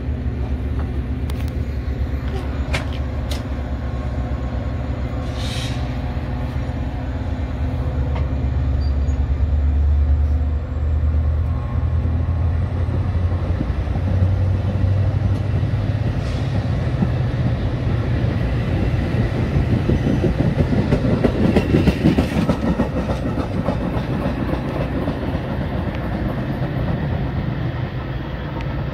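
Metra bilevel commuter train pulling out of the station: a steady low drone from the train for the first several seconds, with a few sharp knocks near the start as the doors shut. Then the wheels clatter over the rail joints, growing louder as the cars roll past and easing off near the end.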